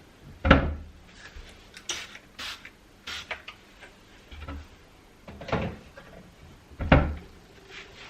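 Knocks and clatter of a pantry cupboard and its contents being handled while it is cleared and wiped out: two loud thumps, about half a second in and near seven seconds, with lighter clicks, taps and rustles between.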